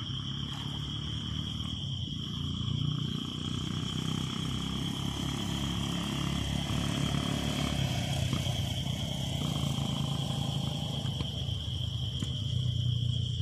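Steady high-pitched drone of insects, crickets or cicadas, over a louder low rumble that swells slightly a couple of seconds in.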